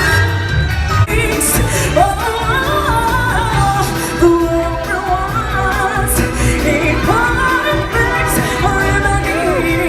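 Show music with several voices singing a melody over a steady bass beat.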